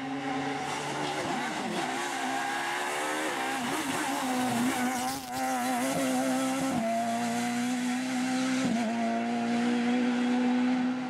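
Rally car engine at high revs. Its note dips and climbs again several times, with one sharp break about five seconds in, as the driver shifts and lifts, then holds one steady high note through the last few seconds.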